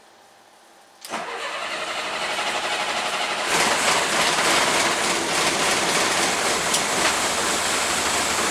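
Bus diesel engine started: the starter cranks it from about a second in, and it catches and runs steadily from about three and a half seconds. This is the first start after a temporary wiring fix that restored crank and power lost when the fuel pump's electrical connector came off.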